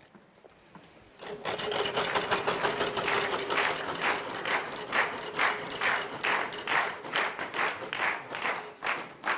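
Game-show prize wheel spinning, its pegs clicking against the pointer flapper in a quick run of ticks that slows to about two a second as the wheel loses speed; the clicking starts about a second in.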